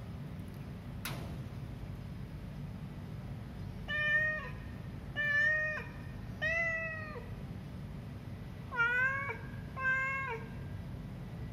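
Stray cat meowing five times in short calls, the first about four seconds in, the last two higher-pitched and closer together. A single sharp click about a second in, over a steady low hum.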